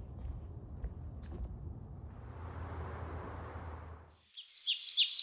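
Low rumbling outdoor noise with a few faint clicks that cuts off abruptly about four seconds in. Then a songbird starts singing loudly: a quick run of repeated down-slurred chirps.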